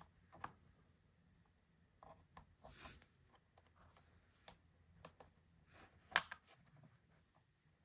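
Faint, scattered clicks and light rubbing of a small rotary switch and its retaining nut being handled and tightened. The sharpest click comes about six seconds in.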